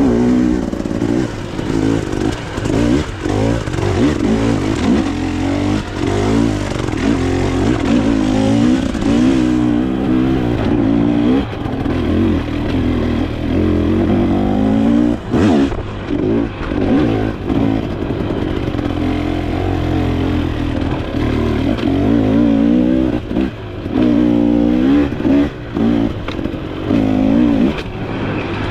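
Off-road dirt bike engine revving up and down over and over as the rider works the throttle on a trail, with a sharp knock about halfway through.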